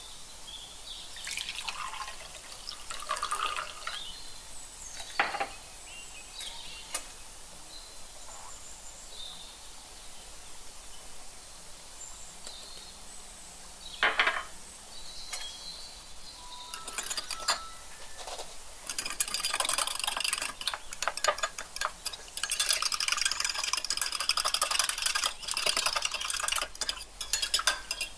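Water poured from a glass into a ceramic mug, then a sharp knock as flour is tipped in from a small bowl. For the last ten seconds or so a metal teaspoon stirs the flour into the water, clicking quickly and steadily against the sides of the mug; this stirring is the loudest part.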